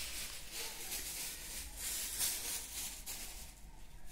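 Irregular rustling swishes, about two a second, over a faint low hum; the rustling dies down near the end.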